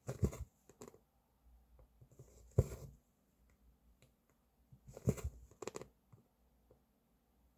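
Hand cross-stitching: a needle poking through the fabric and thread drawn through with a short rasp, four strokes at uneven intervals of a couple of seconds.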